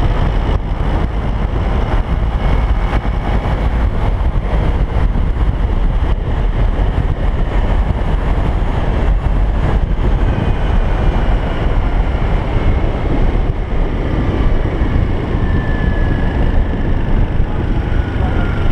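Steady, loud rumble of a moving vehicle heard from on board: deep engine and road noise with a constant rush, and faint thin whistling tones in the last few seconds.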